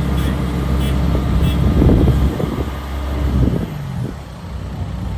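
Engine of a rice combine harvester running steadily, its steady tone dropping away about three and a half seconds in.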